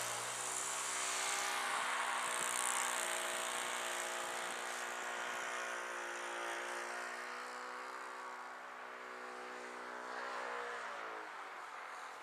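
Radio-controlled model plane's engine running steadily as the plane takes off from snow and climbs away, growing fainter with distance. Its pitch wavers and dips near the end.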